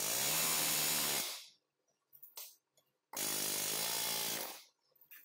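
Pneumatic air hammer rattling in two bursts of about a second and a half each, hammering a suspension stud through the steering knuckle to free it. A short click between the bursts.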